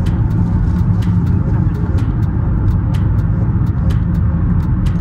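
Steady road noise heard inside a moving car's cabin: low tyre and engine rumble at highway speed, with light ticks about twice a second.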